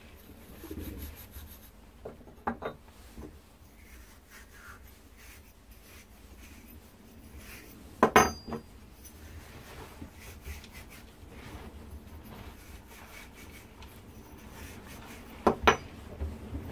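Wire wool rubbing copper pipe and fittings clean of manufacturing residue before soldering, with a few sharp knocks of copper pieces being set down on a wooden bench, the loudest about eight seconds in and another near the end.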